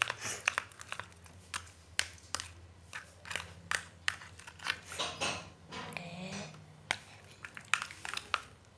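Sticky, not-yet-finished slime being stirred in a container, giving irregular sticky clicks and crackles, over a low steady hum.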